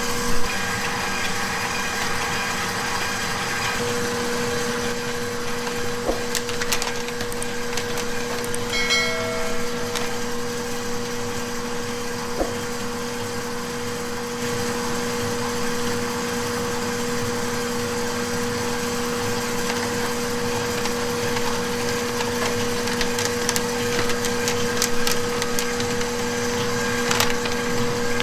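Steady hum of commercial kitchen machinery running, two tones an octave apart over a noisy background, with a few light knocks and clinks of utensils.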